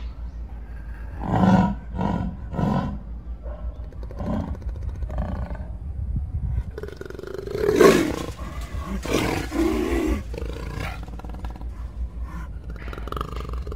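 Jaguar roaring: a series of short, coarse grunts given one after another. Three come in quick succession from about a second and a half in, a few more follow, and the loudest comes about eight seconds in, followed by a longer run.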